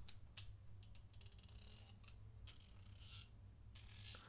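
Faint, scattered clicking and soft rasping of a 90-tooth ICON 3/8-inch ratchet's pawl on its gear as the handle is pressed down and turned, a test for whether the teeth bind under load.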